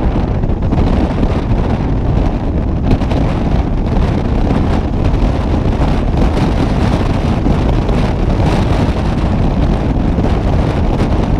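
Steady, loud wind noise buffeting the microphone of a vehicle moving at highway speed, mixed with road noise.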